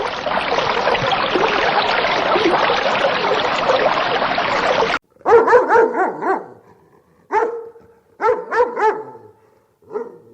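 A dense, continuous clamour of overlapping noise cuts off abruptly about halfway through. A dog barking follows: short, high yapping barks in quick clusters of two to four, with pauses between them.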